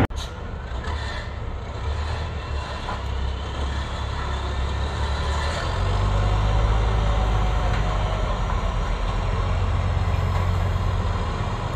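Landing craft's engines running with a steady low rumble, growing louder about six seconds in.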